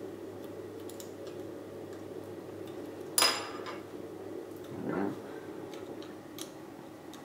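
Small plastic clicks and taps as a Samsung Galaxy S3's internal parts are worked back into the phone frame with fingers and a plastic pry tool, with one sharp click about three seconds in and a softer knock a couple of seconds later, over a steady low hum.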